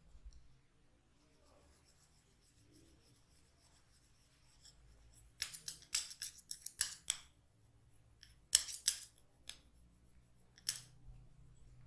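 Hair cracking: a twisted lock of hair tugged and rolled between the fingers, giving crisp, sharp crackling snaps. Faint crackle at first, then a dense run of loud snaps about five to seven seconds in, a few more near nine seconds and a last one near eleven.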